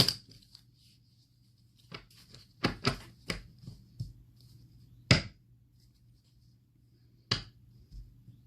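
A tarot deck being handled and shuffled by hand: scattered sharp taps and snaps of the cards, the loudest about five seconds in.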